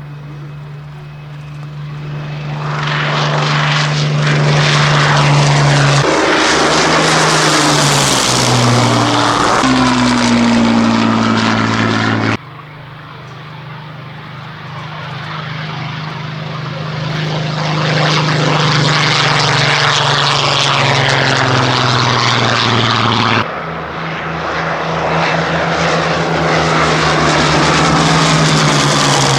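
Formation of Spitfire and Hurricane fighters flying past, their piston V12 engines droning. The drone builds to a loud pass with a falling pitch about a third of the way in. It cuts off abruptly twice and builds up again each time.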